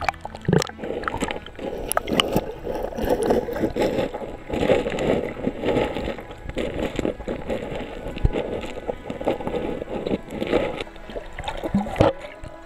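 River water gurgling and sloshing around a half-submerged camera, muffled whenever it dips below the surface, with irregular splashes and clicks from a small dog paddling alongside.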